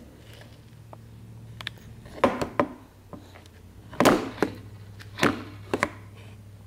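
A toddler's spoon knocking and clattering on a high-chair tray: a handful of irregular sharp knocks, the loudest about four seconds in, over a steady low hum.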